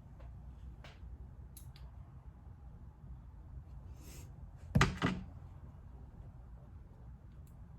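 Handling of small carburetor parts and tools on a workbench during float-height adjustment: a few faint clicks, then two sharp knocks in quick succession about five seconds in, over a steady low hum.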